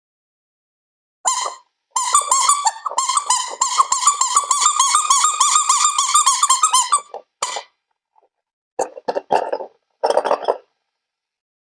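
A rapid string of high squeaks for about five seconds, followed by three short bursts of squeaking.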